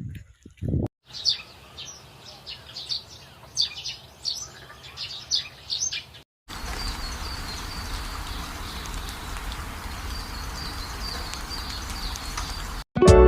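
Small birds chirping, a rapid string of short high calls. After an abrupt cut, a steady rushing noise with a faint, thin, high-pitched repeated call running over it.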